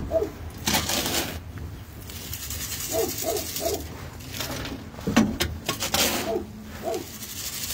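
A rake scraping and scooping through the sand floor of a chicken coop in several strokes, lifting out droppings, while a hen clucks in short notes, three in a row about three seconds in and once more near the end.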